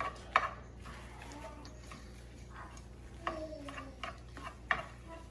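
Cooking utensil clicking and scraping against a pan as eggs are stirred, a handful of sharp ticks spaced irregularly.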